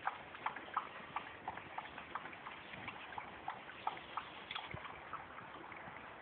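West Highland terrier lapping water from a bowl: a regular run of small wet laps, about three a second, growing fainter near the end.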